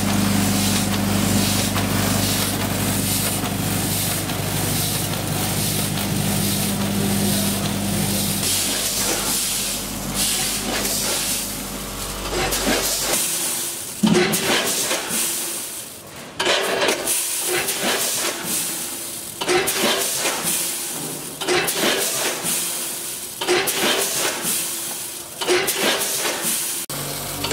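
Snack packing machine's vibratory feeders and multihead weigher running, with puffed grain granules hissing and rattling through the feed pans over a steady low mechanical hum. About halfway through the hum drops away, leaving sudden surges of rattling granules roughly every two seconds.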